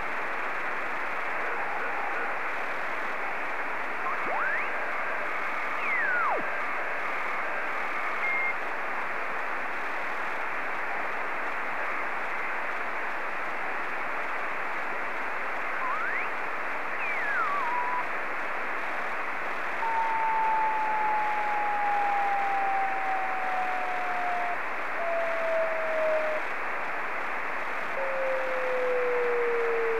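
Yaesu FT-897 receiving the FO-29 satellite's 70 cm downlink in SSB mode: a steady hiss of receiver static. Twice a whistle sweeps quickly up and then back down. From about two-thirds of the way through, a steady carrier tone slowly falls in pitch, the slow drift typical of Doppler shift on a passing satellite.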